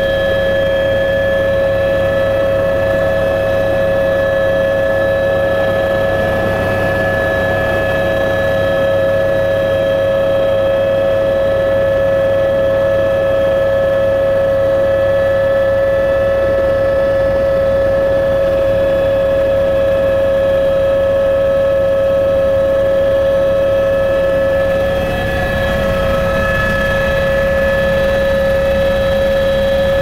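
Helicopter in flight heard from inside the cabin: a loud, steady drone of engine and rotors with a strong steady whine over a low hum.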